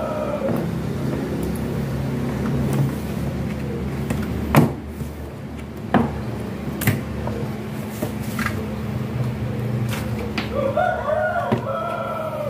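Plastic cabinet panels being fitted by hand: a handful of sharp plastic clicks and knocks as the panels are set and pressed into their slots, the loudest about four and a half seconds in, over a steady low hum.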